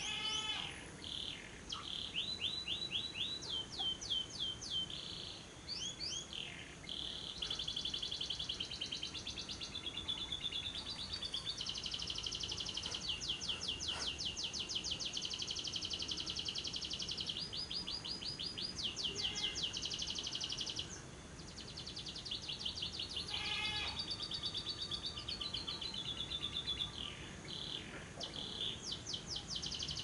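Lovebird giving its long 'ngekek' chatter: rapid, evenly repeated high-pitched notes run together into long unbroken trills. The longest run, in the middle, lasts nearly ten seconds, with shorter runs and brief pauses around it.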